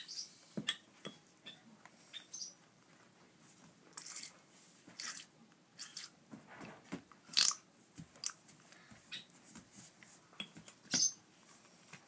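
African grey parrot chicks being hand-fed by syringe, making short raspy, hissing begging squawks at irregular intervals, with small clicking feeding noises between.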